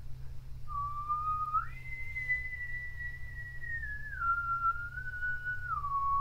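An eerie whistle-like tone, like a sci-fi UFO effect. It starts a little under a second in, jumps up to a higher note, then steps slowly down in held notes.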